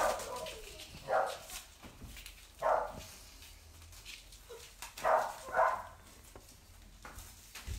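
A dog barking: four short barks spread over several seconds, the last two close together.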